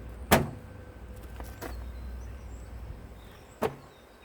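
Sharp knocks of tools and metal parts being handled while a washing machine is taken apart: a loud one just after the start, a few faint ticks, and another about three seconds later, over a low rumble that fades near the end.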